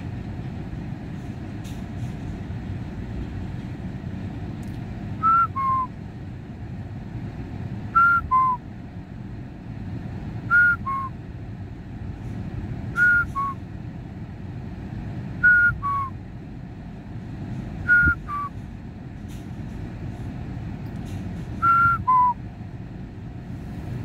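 A person whistling a two-note falling call, a higher note then a lower one, seven times about every two and a half seconds, over a steady low rumble.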